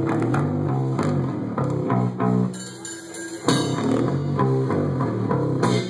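Live metal band playing a heavy riff on electric guitar and bass with drums, with a short break about halfway through before a sharp hit brings the riff back.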